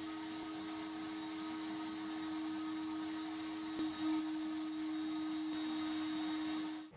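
An electric power tool running at a steady speed: a constant hum with a hiss over it, cutting off sharply near the end.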